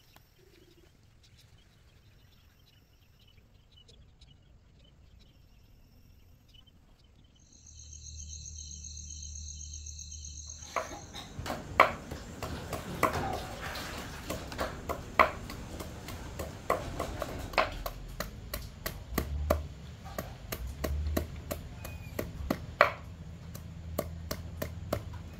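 A long knife chopping rapidly on a round wooden chopping block, mincing a yellow root into small pieces: a steady run of sharp knocks with a few louder strikes. The chopping starts about ten seconds in, after a quieter stretch with a high pulsing trill.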